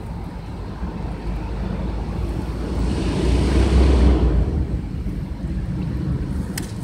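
Wind buffeting the microphone in a low rumble over the steady rush of river water, swelling louder for a couple of seconds about midway, with a single sharp click near the end.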